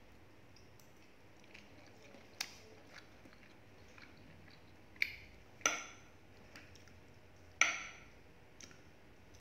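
Metal knife and fork scraping and clinking against a ceramic plate while cutting a chicken drumstick: a few soft ticks and four sharp clinks that ring briefly, the loudest about three-quarters of the way through.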